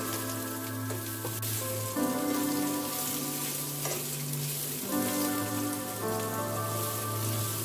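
Sliced onion, garlic and ginger sizzling in hot oil in a wok, a steady frying hiss, under soft background music whose sustained chords change every couple of seconds.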